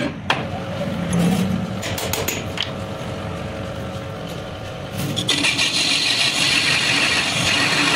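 Belt-driven metal lathe starting up and running, its three-jaw chuck spinning, after a couple of sharp knocks at the start. About five seconds in the machine noise grows louder with a steady high hiss.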